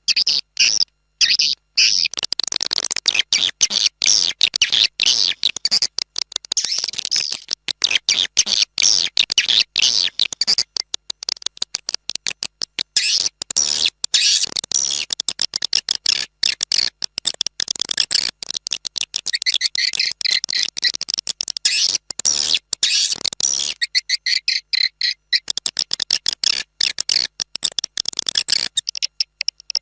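Swiftlet calls from a swiftlet-house lure sound track: a dense, unbroken stream of rapid high-pitched chirps and chittering clicks, many per second. A little after the middle of the passage the lower chittering drops out briefly, leaving only the higher twittering.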